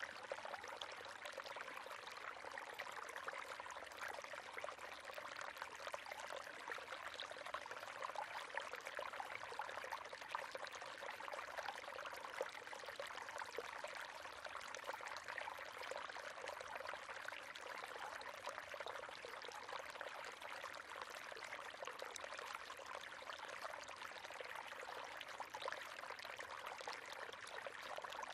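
River water running steadily over rocks: a constant splashing, gurgling flow.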